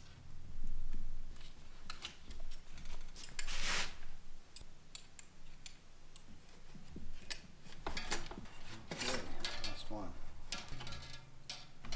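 Irregular clicks, taps and rustling of bicycle handlebar parts and hand tools being handled while a road bike's handlebars are swapped, with a longer rustle just before four seconds in.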